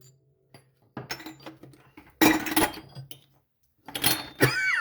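Metal tools and steel parts being handled on a workbench: a series of clinks and clanks, the loudest about two seconds in and a few more near the end.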